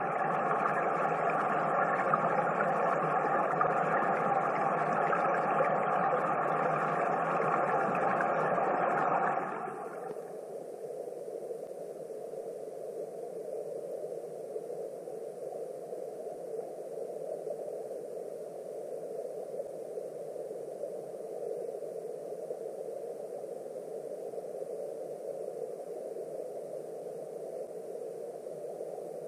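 Muffled, steady rush of flowing river water heard through an underwater camera housing. For roughly the first nine and a half seconds a louder sound made of several steady tones, like a machine running, sits on top and then cuts off suddenly.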